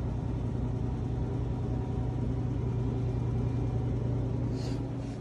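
Steady low electric hum of refrigerated vending machines running. Two brief hissy rustles come near the end.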